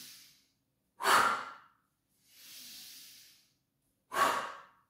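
A woman breathing audibly in time with yoga arm sweeps: two sharp, forceful exhales, about a second in and again near the end, with slower, softer inhales between.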